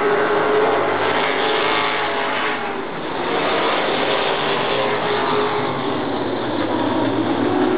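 Race car engines running at speed around an oval speedway, several cars together with wavering engine pitch. The sound eases briefly about three seconds in, then builds again as cars come past.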